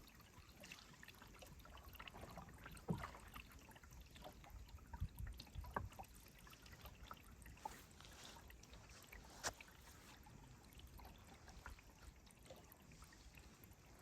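Canoe paddling, heard faintly: water trickling and dripping with scattered small splashes and knocks, the sharpest about nine and a half seconds in.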